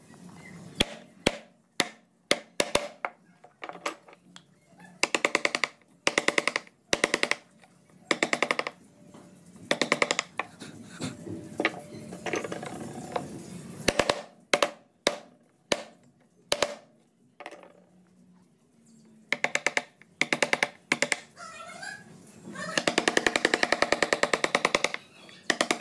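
Wood-carving gouge being driven into wood with rapid mallet taps, in quick bursts of taps separated by short pauses.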